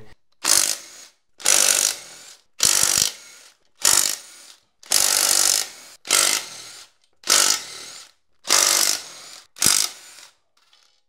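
Cordless DeWalt impact driver hammering in nine short bursts, about one a second, as it backs out the bell housing and front pump cover bolts of a 6L90E six-speed automatic transmission.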